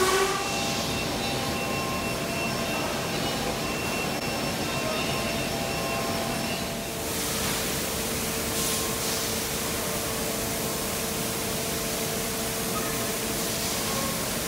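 Steady industrial hum and hiss of a tire factory floor, with faint steady tones. About halfway through the sound turns hissier and a faint steady whine comes in.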